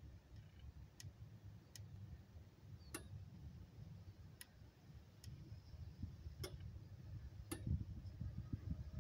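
Single-phase solar PV inverter giving faint, sharp clicks, about seven at uneven intervals, over a low rumble as it counts down to grid connection and starts up.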